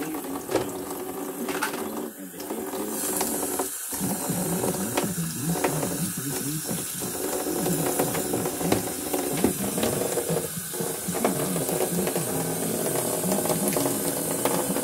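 Kitchen faucet running into a small plastic dish pan in a camper sink, the water hiss getting fuller about three seconds in, over a wavering mechanical hum.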